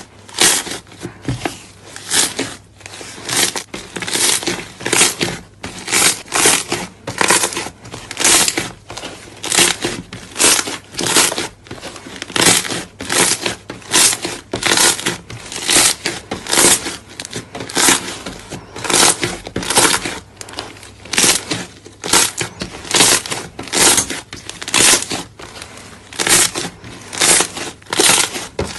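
Slime being pressed and squeezed by hand, a crackling, crunchy squish repeated about twice a second.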